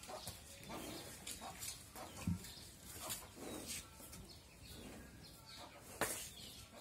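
Quiet farmyard sounds: chickens clucking and small birds chirping, with a brief low thump about two seconds in and a sharp click near the end.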